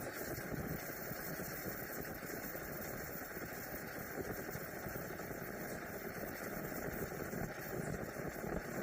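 1946 Coleman 530 pocket stove, a pressurised gasoline stove, burning with a steady rushing hiss.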